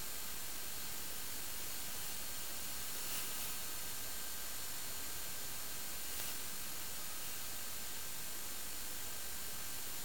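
Steady radio static hiss with a few faint thin high whines through it, as carried by an analog FPV video link's audio channel. Two brief faint surges in the hiss about three and six seconds in.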